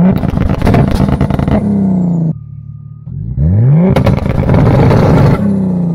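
Turbocharged BMW M52 straight-six revved up against its launch-control rev limiter twice, each time a quick rise in pitch, then a choppy stutter with cracks and pops for about a second and a half, then the revs falling away. The limiter is set to ignition cut, so unburnt fuel goes into the exhaust to make the pops.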